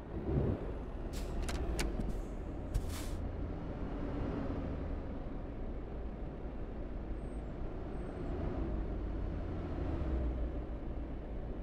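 Car driving along: steady low rumble of engine and road noise. A few sharp clicks and short hissing bursts come in the first three seconds.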